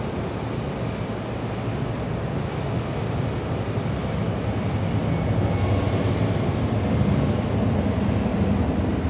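Steady low engine drone of a simulated aircraft flying past, played through the dome's sound system, swelling a little past the middle.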